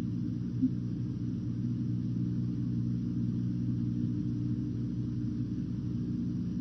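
Steady low hum with an even hiss from the soundtrack of an old film, with no clear impacts.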